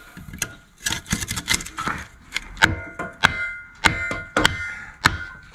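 A series of sharp metallic knocks and clanks on a steel RSJ beam, about a dozen strikes. From about halfway in, the steel rings briefly after each strike.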